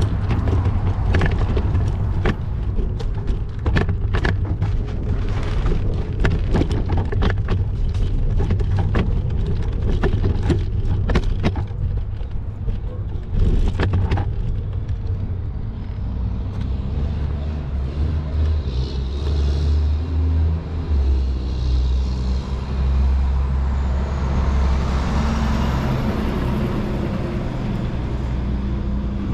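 Road traffic. For about the first half, a heavy low rumble runs under a rapid string of clicks and knocks. Then a large vehicle's engine runs steadily through the second half.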